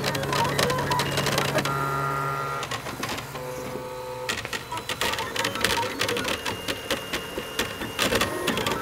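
Ultimaker 3D printer at work: its stepper motors whine at pitches that keep jumping as the print head makes short, quick moves, over dense ticking. A low hum fades out a few seconds in, followed by a quieter stretch of a few held tones before the busy whining and ticking return.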